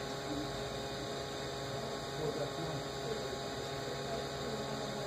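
Steady hum from a MakerBot Replicator 2 3D printer idling while its extruder heats up to release the loaded filament.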